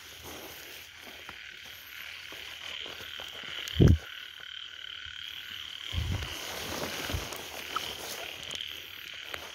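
A steady chorus of frogs croaking, with a loud thump about four seconds in and a couple of softer thumps later.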